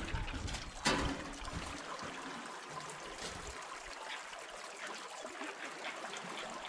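Flood-swollen river water running and rippling against the bow of a small boat, a steady watery hiss. There are two short knocks in the first second.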